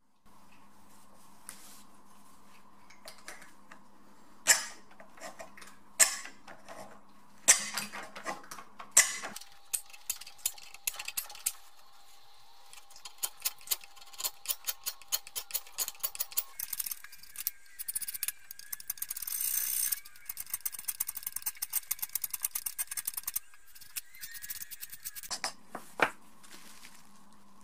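Hand tools scraping and cutting into a hornbeam axe handle in runs of quick scratchy strokes, with four sharp knocks about a second and a half apart in the first third.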